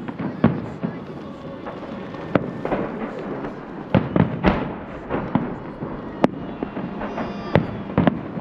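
Fireworks salute: shells bursting in a dense, irregular run of sharp bangs over a continuous rumble of further reports.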